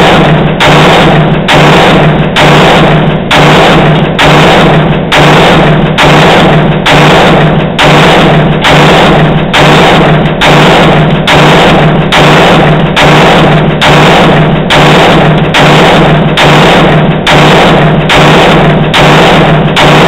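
Music with a heavy, steady drum beat, about four beats every three seconds, over a sustained low bass note.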